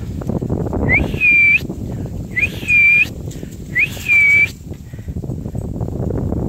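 Three whistle blasts about a second and a half apart, each sliding up briefly and then held on one steady high note: a handler's whistle signal to a working dog.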